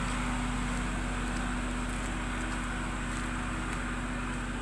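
Steady engine hum from construction machinery running at a constant pitch, with faint footsteps scuffing on the dirt road.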